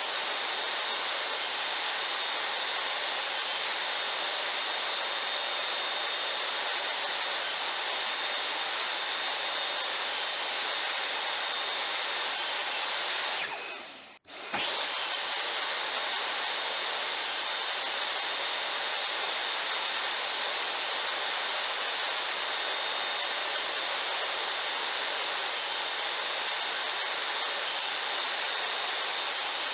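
Electric power tool running steadily on wood. About thirteen seconds in it is switched off and winds down, then it starts again a second later and runs on at the same level.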